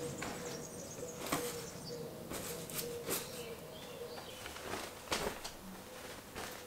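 Dry laundry handled off a clothes drying rack into a wicker basket: fabric rustling and flapping in several short strokes, with soft knocks, over a faint steady hum.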